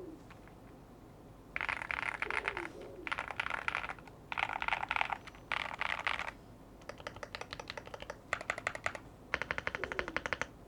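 Typing on a Yunzii AL80 CNC-aluminium mechanical keyboard with Gateron Zero switches: about seven bursts of rapid keystrokes separated by short pauses, the later bursts a faster, even run of separate clicks.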